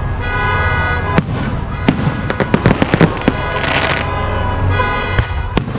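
Fireworks going off over music: a single sharp bang about a second in, a quick run of crackling reports through the middle, and two more sharp bangs near the end.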